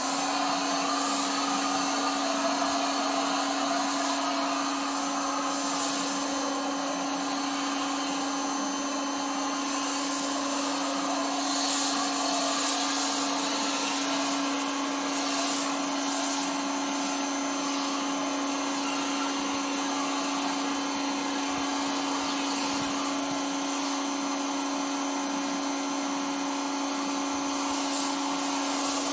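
Pressure washer running with a Chemical Guys Big Mouth Max Release foam cannon on the gun, spraying soap foam: a steady motor hum over spray hiss that starts abruptly and holds unbroken.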